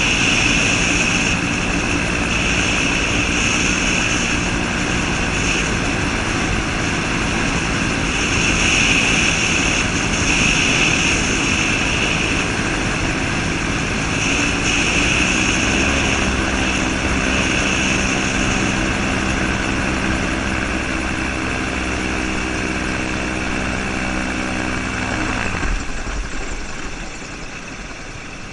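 Gyrocopter's Subaru EA-81 flat-four engine and pusher propeller droning steadily over a rushing, fluctuating wind noise during the descent to land. Near the end the engine note falls and the sound drops as the power comes off.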